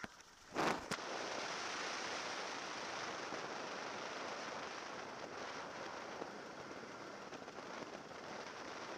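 Marquart Charger biplane's engine at idle while taxiing, heard from the open cockpit as a steady rushing noise with no clear pitch. A short, loud burst of noise just under a second in.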